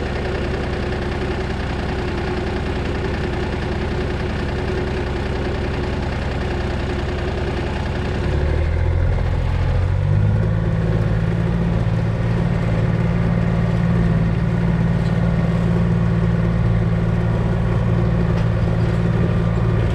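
Vehicle engine idling, then speeding up about eight and a half seconds in and running steadily louder as the vehicle moves off.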